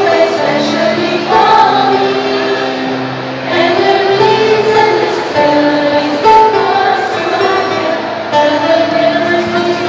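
A small group of voices, mostly women, singing a song together with acoustic guitar accompaniment, holding long notes.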